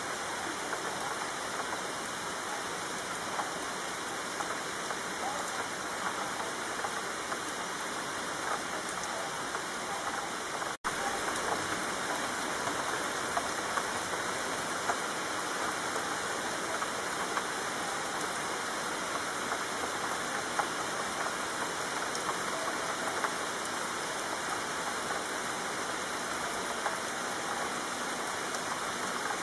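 Steady rain falling, a dense even hiss. The sound cuts out for an instant about eleven seconds in, then carries on as before.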